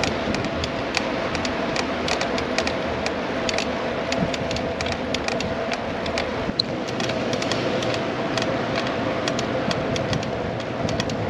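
A 20-inch Caracle-S folding mini-velo being ridden along a road: steady rolling noise with a faint steady hum and many light, irregular ticks.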